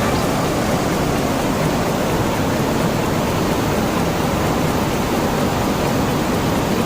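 Waterfall's steady, loud rush of falling water, even and unbroken.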